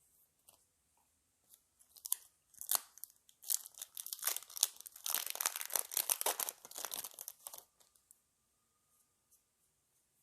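A Yu-Gi-Oh! Phantom Rage booster pack's foil wrapper being torn open and crinkled by hand: a dense run of crackling and tearing that starts about two seconds in and stops about two seconds before the end.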